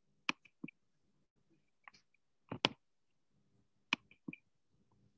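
Irregular sharp computer mouse clicks, about half a dozen, the loudest a double click about halfway through, as a screen share is set up, over a faint low hum.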